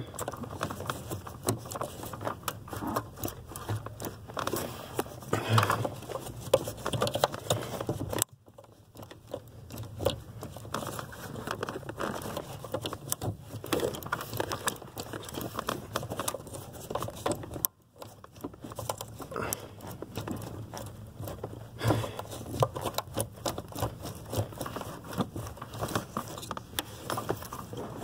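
Gloved hands working under a car's dashboard, rustling and scraping against wiring and plastic while wiggling a brake light switch off its pedal pin: a steady run of irregular small clicks, crinkles and scrapes. The sound cuts out briefly twice.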